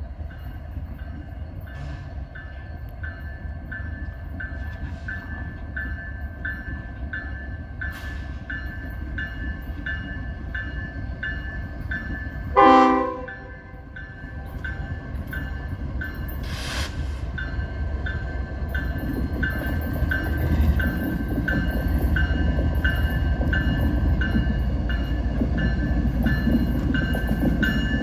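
A CN GE ES44DC locomotive's Nathan K5HL horn sounds one short blast about halfway through, over the steady rumble of the diesel and a bell ringing a little faster than once a second. The rumble grows louder in the last third as the train draws closer.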